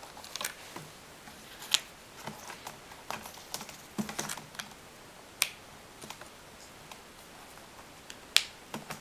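Scattered light plastic clicks and taps as a laptop keyboard and its ribbon-cable connector are handled during fitting. Sharper single clicks come about two seconds in, about five and a half seconds in, and near the end.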